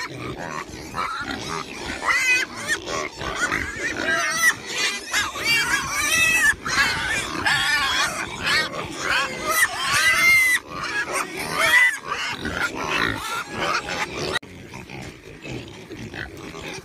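Pigs calling: many short, high-pitched squeals in quick succession. They thin out and grow quieter about fourteen seconds in.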